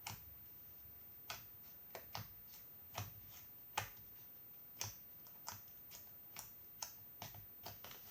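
Scattered short, sharp clicks and small pops at an uneven pace, roughly two a second, as slime is worked by hand while toothpaste is added to it.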